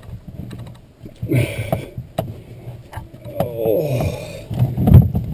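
Handling noise of a skin-on-frame canoe being taken down off the shoulders: scattered knocks, rubs and creaks of its wooden ribs and fabric skin, with one heavy thump about five seconds in.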